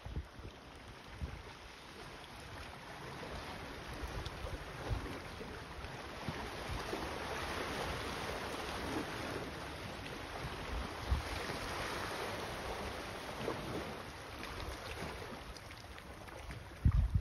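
Wind buffeting the microphone in low thumps over a steady rushing noise that swells in the middle and eases off again, with a loud low bump near the end.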